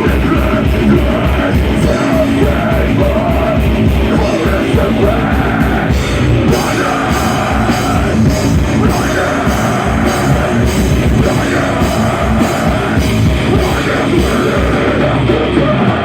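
Loud rock music with distorted guitars, a steady driving drum beat and shouted or sung vocals.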